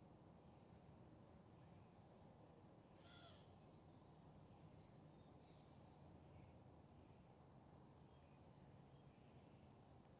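Near silence: faint outdoor ambience with a low steady rumble and distant birds chirping on and off.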